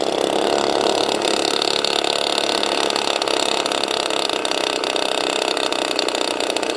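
Twin DLE-20 two-stroke gasoline engines of an RC P-38 Lightning model running steadily at idle on the ground. One of the mufflers is loose on a stripped mounting bolt.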